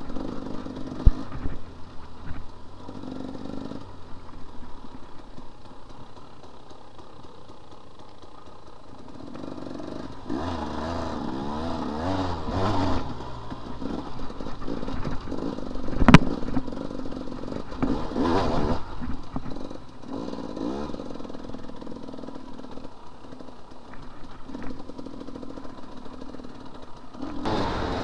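Enduro dirt bike engine under way, its revs rising and falling with the throttle, with rattles and knocks from the bike over rough ground. One sharp knock about sixteen seconds in is the loudest sound.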